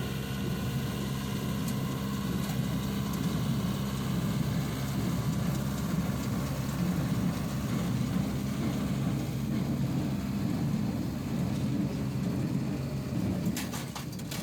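Farm tractor engine running steadily while it pulls a working square hay baler. A few sharp clicks come near the end.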